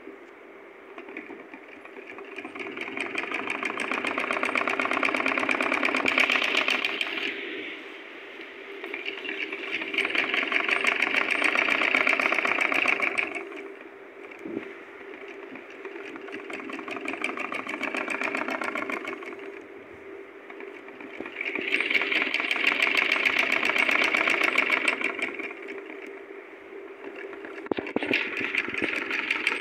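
Sewing machine stitching in short runs of about four seconds each, every run speeding up and then slowing down, with brief pauses between them; four runs, and a fifth starts near the end. A faint steady hum carries on through the pauses.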